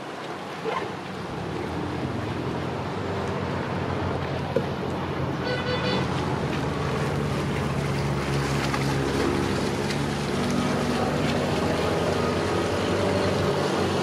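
Small motor cruiser's engine running steadily as it passes close by, growing louder over the first couple of seconds, with water churning in its wake.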